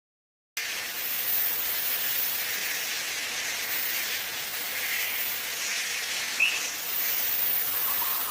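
Rainforest ambience: a steady hiss of insect calls with a very high-pitched drone that comes and goes, cutting in abruptly about half a second in. One short chirp sounds about six seconds in.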